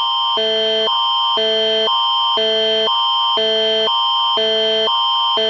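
Canadian Alert Ready attention signal: two chords of steady tones alternating about every half second, a higher pair near 1 kHz and a lower pair, over one constant high tone. It is the alert tone that announces an emergency alert message.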